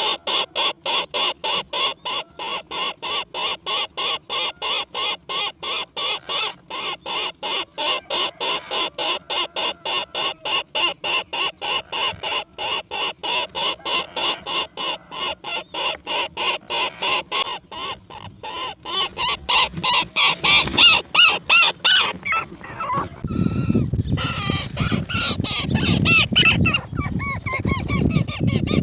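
Bird calls repeated rapidly and evenly, about three or four a second. In the last several seconds they give way to louder, rougher, more jumbled calling.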